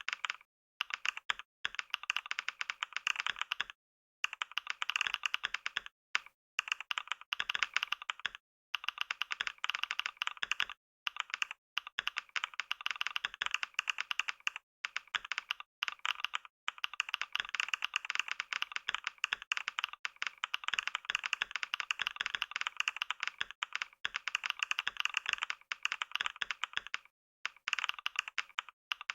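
Computer keyboard being typed on fast in a dense, continuous stream of key clicks, about 88 words a minute, with brief pauses every few seconds.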